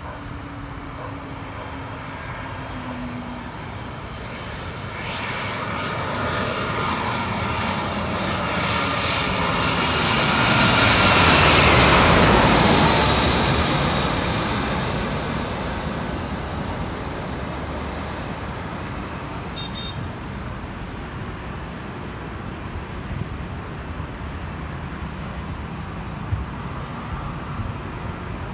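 Airbus A321-231 airliner with IAE V2500 turbofans passing low overhead on final approach: the engine noise swells to a loud peak about twelve seconds in, its whine dropping in pitch as it goes by, then fades to a steady distant rumble.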